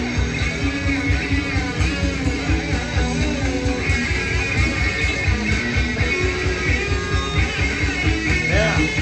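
Hard rock playing from a vinyl record: electric guitar over steady, driving drums.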